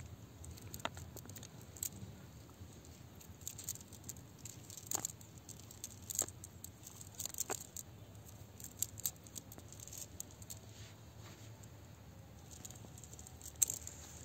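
Cast net being handled on dry ground: irregular light clicks, taps and rustles of the mesh and its weighted edge as fish are picked out.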